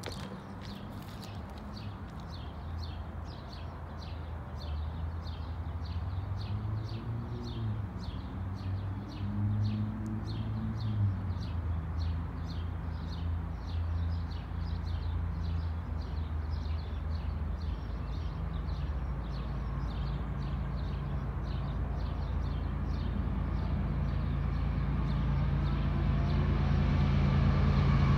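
Diesel locomotives of an approaching CSX intermodal freight train rumbling, growing steadily louder as the train nears. Through the first half a bird chirps over and over, about twice a second.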